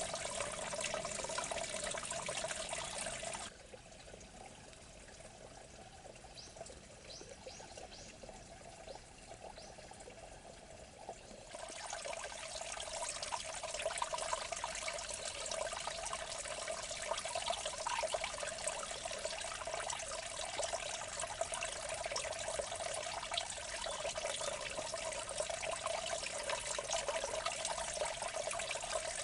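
Water running steadily in a small irrigation ditch, a continuous trickling pour. From about 3 s to 11 s it is quieter and duller, then returns to the same level.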